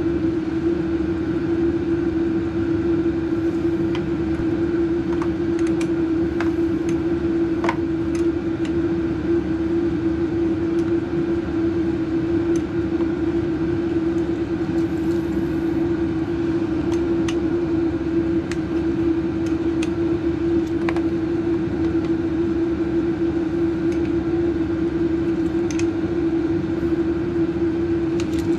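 A loud, steady mechanical drone with a strong low hum, and scattered small metallic clicks from a spanner tightening the battery terminal bolts.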